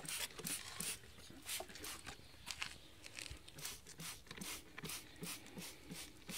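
A hand trigger spray bottle being squeezed over and over, each pull giving a short hissing squirt, about two to three squirts a second.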